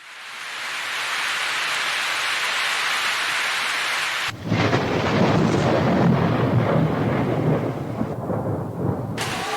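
Steady rain hiss fading in, then, with an abrupt cut about four seconds in, a long low rumble of thunder over the rain.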